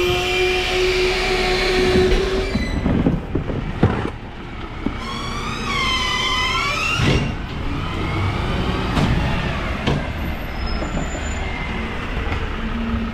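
Refuse collection truck (bin lorry) working at the kerb: its engine and machinery run with a steady whine for the first couple of seconds, then a wavering metallic squeal for about two seconds in the middle.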